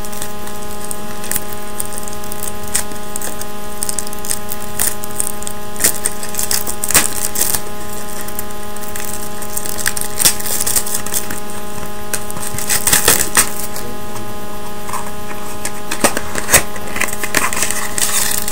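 Small crinkling and clicking sounds of a trading-card pack being torn open and the cards handled, with a busier stretch of crinkling about thirteen seconds in, over a steady electrical hum.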